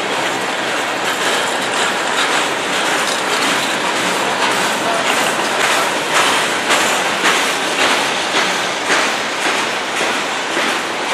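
Freight cars rolling past: a steady rumble of steel wheels on rail, with clicks over the rail joints coming about twice a second in the second half.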